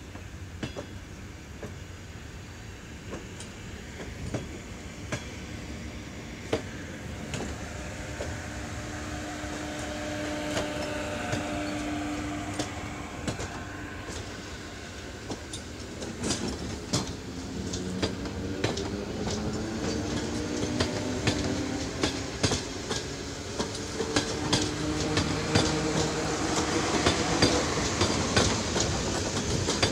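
Electric multiple unit pulling away and gathering speed. The traction motors whine in several tones that rise in pitch, and the wheels clack over rail joints more and more often as the train grows louder.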